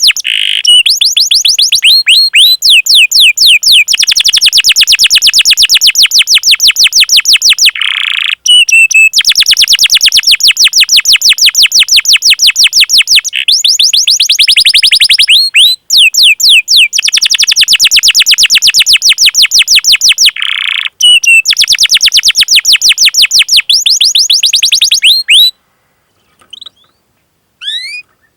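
Domestic canary singing long rolling trills of rapid, evenly repeated high 'cuit cuit' notes, about ten a second, broken by brief pauses and a few short lower notes. The song stops near the end, leaving only a few faint chirps.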